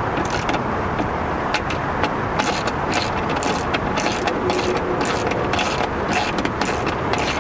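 Socket ratchet clicking in short irregular runs as bolts are tightened, over a steady noisy background.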